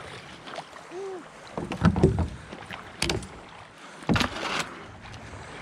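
Handling noises in a kayak on moving water: a cluster of dull knocks about two seconds in, the loudest, then a sharp click and a brief splash-like burst, over a low steady wash of water.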